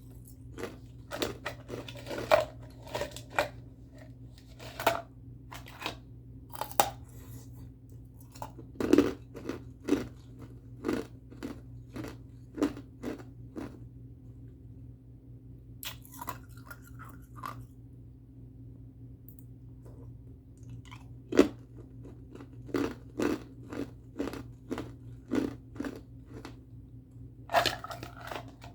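Ice being bitten and chewed close to the microphone: loud, sharp crunches in quick clusters, with a pause of a few seconds past the middle before the crunching starts again.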